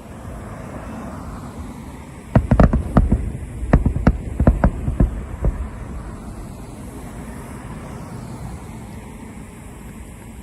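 Aerial firework shells bursting: about a dozen sharp bangs in quick succession over some three seconds, starting about two seconds in, over a steady low rumble.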